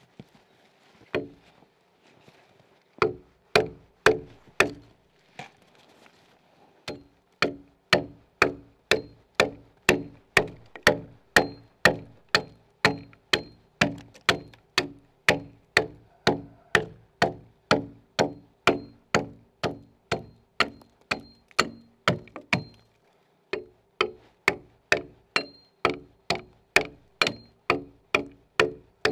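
Axe chopping into a log by hand, hewing a notch for a cogged log-house corner joint. After a few scattered blows it settles into a steady rhythm of about two strokes a second, each with a short ring, and pauses briefly near the end.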